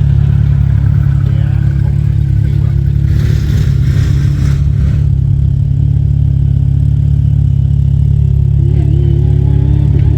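ATV engine running under way, its pitch wavering up and down with the throttle over a heavy low rumble. A rushing hiss comes in about three seconds in and fades about two seconds later.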